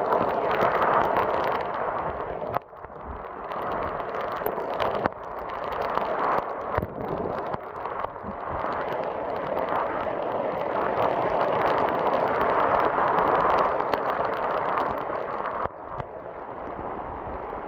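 Torrential rain pouring down, a dense, loud patter thick with scattered individual drop hits, swelling and easing in waves and dipping briefly twice.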